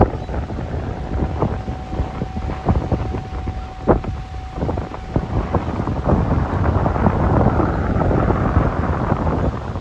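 Wind buffeting the microphone: a dense low rumble with scattered pops and crackles. A thin, steady tone sounds for a few seconds in the first half.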